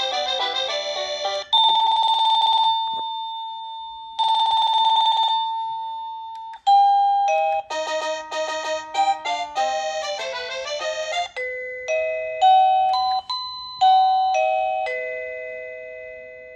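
Wireless doorbell chime playing its electronic melody tunes one after another. A tune ends, then two single long chime notes each ring out and fade, then a new multi-note melody plays and ends in a few slower single notes that fade away.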